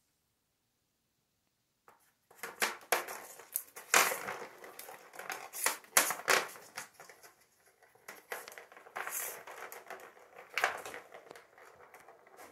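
Kittens playing: irregular clattering, rattling and scratching from paws and claws batting at a plastic ball-track toy and skittering on a hard floor, starting about two seconds in.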